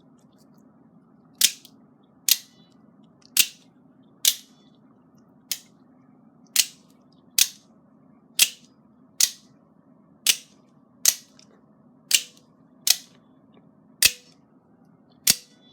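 Double-action OTF automatic knife being fired again and again with its one slider button, the blade snapping out of the front and back into the handle. About fifteen sharp, loud snaps come roughly a second apart.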